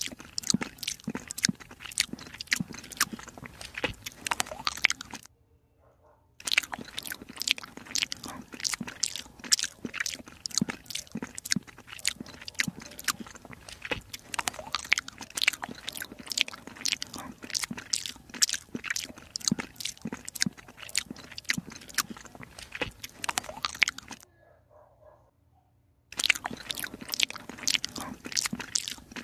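Kitten chewing and lapping small chunks of cat food off a plate, with a rapid run of close-up wet smacks and crunches that stops briefly twice.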